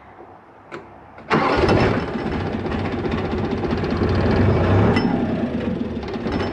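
Site dumper's diesel engine starting: a small click, then a little over a second in the engine fires at once and runs steadily. Near five seconds it settles a little.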